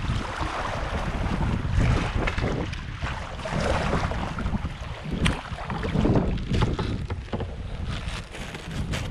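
Shallow river water rippling and splashing around a drifting kayak, with gusts of wind buffeting the microphone and a few sharp ticks.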